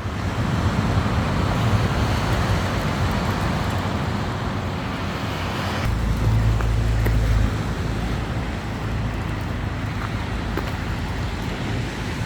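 Steady road noise of a car driving, an even rushing hiss. About six seconds in the sound changes and a heavy low rumble holds for about a second and a half.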